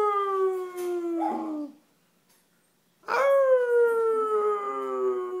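A man and a dog howling together in two long, slowly falling howls, the second starting about 3 seconds in after a short silence.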